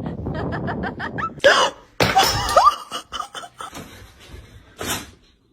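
A person laughing: a quick run of short pulses, about eight a second, then a few louder bursts with rising breaths and squeals, and a brief loud burst near the end.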